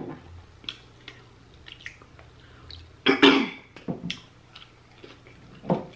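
Soft mouth clicks and smacks from someone eating fried chicken wings, with a brief louder cough-like throat sound about three seconds in and a shorter one near the end.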